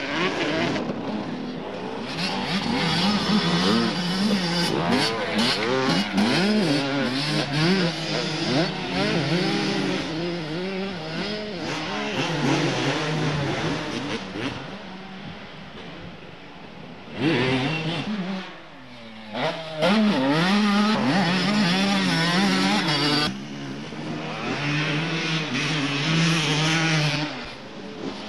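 Motocross bike engines revving, the pitch climbing and dropping again and again with the throttle. The sound changes abruptly twice along the way.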